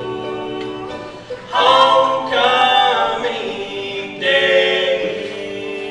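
Bluegrass band playing a gospel song: harmony singing over banjo, guitar and upright bass, with the voices swelling louder about a second and a half in and again past four seconds.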